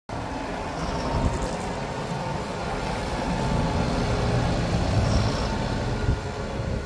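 Fendt 718 Vario tractor running as it drives past close by with a mounted reversible plough, its engine rumble growing louder as it nears.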